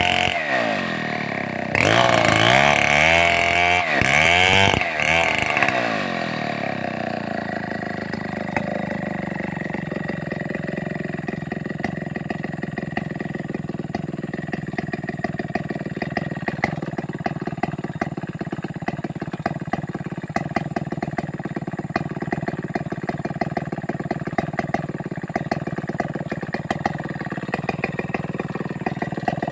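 Stihl 070 single-cylinder two-stroke chainsaw engine revved up and down several times, then dropping to a steady idle for the rest of the time.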